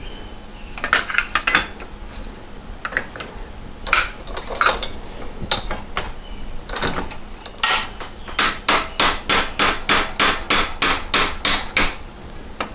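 Hammer blows on a 3/16-inch punch, driving the hardened pivot pin out of a 1966 Porsche 912's pedal cluster. Scattered taps at first, then a quick, even run of about three blows a second over the last five seconds as the pin gives way.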